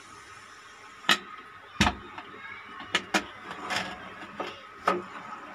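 Aluminium pressure cooker lid being twisted and worked loose by its long handle: a string of sharp metal clicks and knocks, about seven in all, the loudest a dull thump just under two seconds in.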